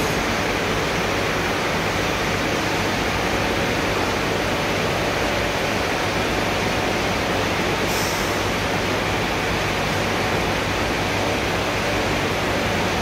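Steady, even machine din of a yarn dyeing and winding mill, with a low hum under it. A brief high hiss about eight seconds in.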